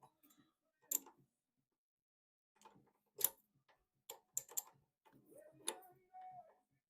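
Scattered light metallic clicks and taps, a few seconds apart and then in a quick cluster, from lathe tool-post parts being handled while the cutting tool's height is adjusted.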